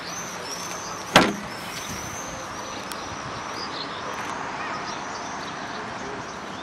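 The rear hatch (tailgate) of a 2013 Skoda Fabia hatchback slammed shut: one sharp thud with a brief ring about a second in. Birds chirp in the background.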